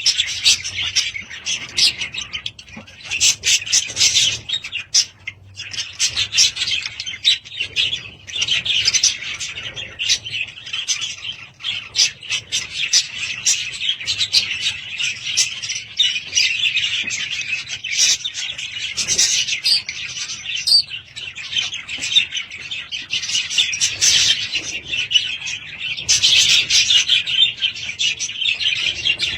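Budgerigars chirping and chattering continuously, many rapid overlapping chirps and warbles.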